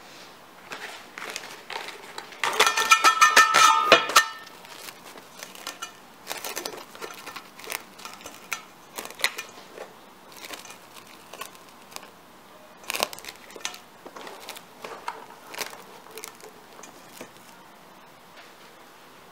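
Household handling sounds: scattered clicks, taps and crinkling, with a loud buzzing, rattling stretch of about a second and a half starting about two and a half seconds in.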